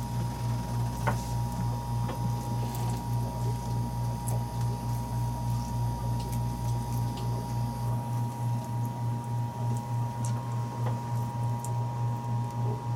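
A lime being squeezed by hand into a bowl of salsa, with soft wet squishing and small clicks, over a steady low hum that pulses about three times a second. The deepest part of the hum drops out about eight seconds in.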